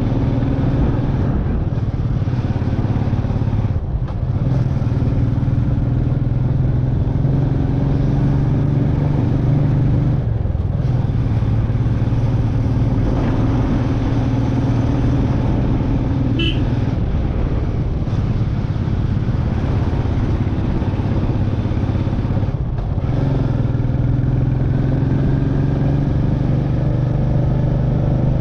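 Royal Enfield Meteor 350's single-cylinder engine running steadily as the bike is ridden, its note dropping away briefly three times. A short high chirp sounds once about halfway through.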